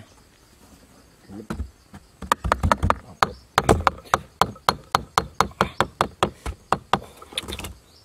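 A small hammer tapping an upright bamboo stick down into a cardboard base: a steady run of sharp light taps, about four a second, starting about two seconds in and stopping shortly before the end.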